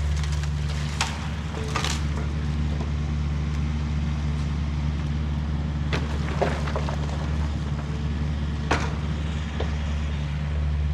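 Excavator's diesel engine running steadily under work, with a few sharp cracks and snaps of wood scattered through as tree tops are grabbed and stacked.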